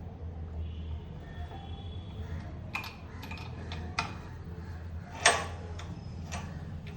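A handful of sharp, irregular clicks and knocks, the loudest a little past five seconds in, over a steady low hum.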